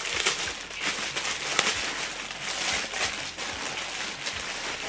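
Thin clear plastic polybag crinkling and rustling in a dense, irregular crackle as it is handled and a pair of folded cotton shorts is pulled out of it.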